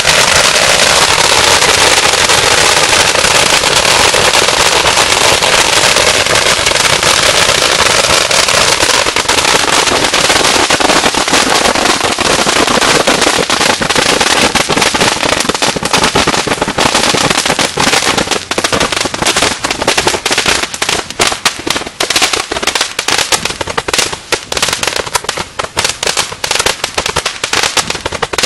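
Fireworks going off in a dense, continuous crackling barrage that thins out about halfway through into separate sharp cracks and bangs, coming more and more sparsely toward the end.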